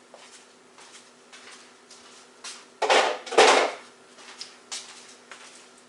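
Food containers and refrigerator drawers being handled: light clicks and knocks, with two louder rattling slides about three seconds in, over a low steady hum.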